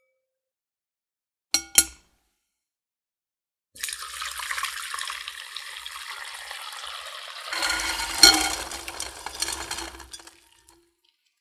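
A glass bowl set down with two short ringing clinks, then the dark cooking water of boiled azuki beans poured through a mesh strainer into the glass bowl. The water splashes steadily for about six seconds, gets fuller partway through with one sharp knock, and tails off near the end. This is the first boiling water being drained off to take away the beans' bitterness.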